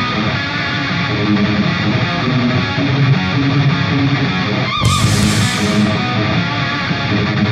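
Background rock music led by electric guitar, with a brief break about five seconds in.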